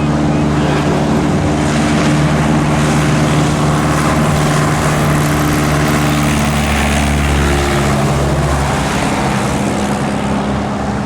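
Light aircraft's piston engine and propeller running at high power for departure, a loud steady drone that cuts in suddenly and eases off slightly towards the end.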